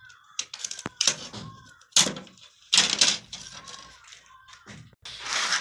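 Sharp plastic clicks and snaps as the cover plate of an 8-module modular switch board is pried off its mounting frame with a screwdriver, and the plastic parts knock on the wooden bench: a string of knocks, loudest about two and three seconds in.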